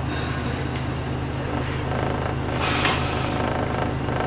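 City bus engine running with a steady low drone, and a short hiss of compressed air being let out of the bus's air system about two and a half seconds in.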